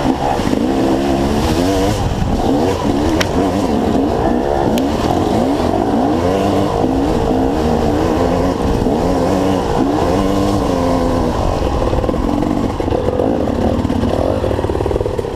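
Dirt bike engine revving hard and repeatedly, the pitch swinging up and down many times as the throttle is worked, typical of riding through a water crossing.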